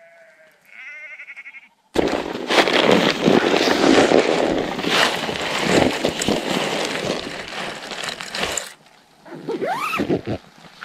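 A tent being opened and climbed out of. Faint quick ticking comes first, then loud rustling and crackling of the tent fabric for about seven seconds, which stops suddenly.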